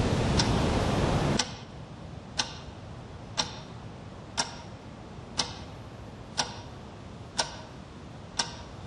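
Clock ticking once a second with sharp, even ticks. For about the first second and a half the ticks sit under a loud rushing noise, which then cuts off abruptly, leaving the ticking alone.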